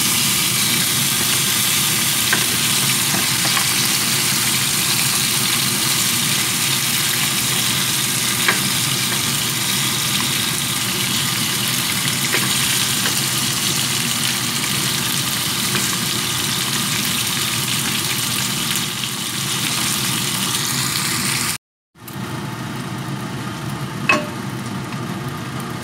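Whole tilapia sizzling as it fries in hot oil in a nonstick pan: a steady, dense hiss with a few faint clicks. After a brief dropout near the end, the pan of oil sizzles more quietly, with one sharp tap.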